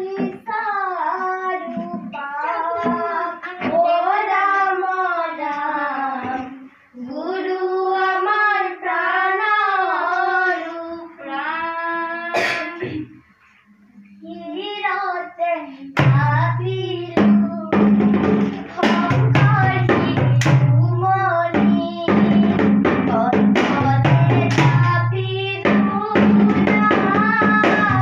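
Children singing a song, unaccompanied at first; about sixteen seconds in, a drum joins with steady rhythmic strokes and low ringing tones under the singing.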